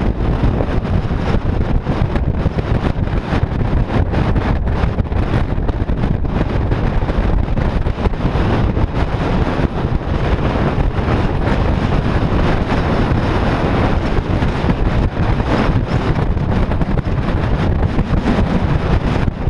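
Strong wind buffeting the camera's microphone: a loud, continuous low rumble that flutters unevenly as the gusts hit.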